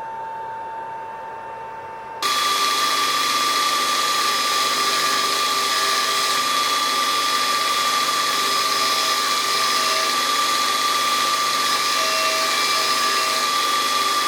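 Power grinder running with a steady high whine. About two seconds in, the sound jumps suddenly to a much louder, hissier level and then holds steady.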